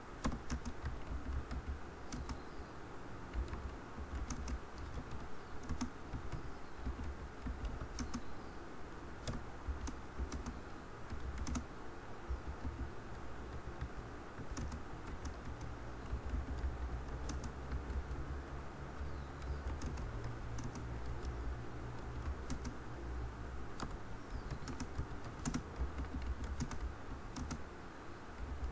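Typing on a computer keyboard: irregular runs of key clicks, over a steady low hum.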